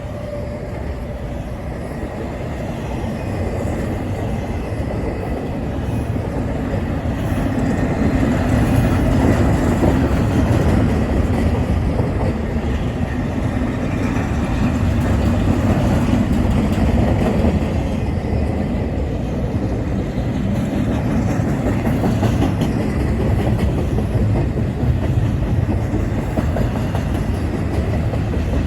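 Long train's cars rolling past close by, a steady rumble of wheels on rail that grows a little louder about eight seconds in.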